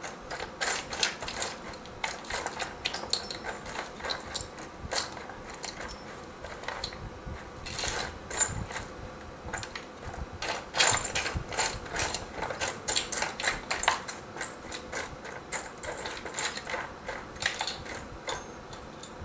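Small metal parts and screws clicking and rattling as a hand rummages through a plastic parts tray, in a dense, irregular run of clicks.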